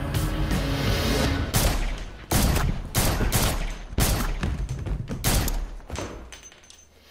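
Rapid handgun gunfire: a string of sharp pistol shots, several a second, starting about a second and a half in and thinning out near the end. Music plays under the opening moments.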